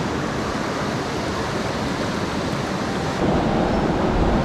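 Rushing water of a fast mountain river running through rapids: a steady wash of noise that gets a little louder and fuller about three seconds in.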